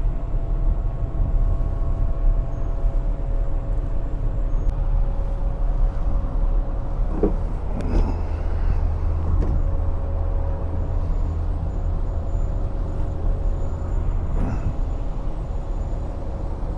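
Rooftop HVAC equipment running: a steady fan and motor hum with a low rumble and a few faint steady tones. A few light knocks around the middle and near the end.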